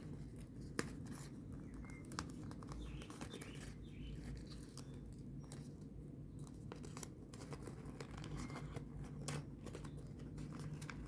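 Folded origami paper units rustling and crinkling in the hands, with many small irregular clicks and scratches, as paper flaps are slid into pockets.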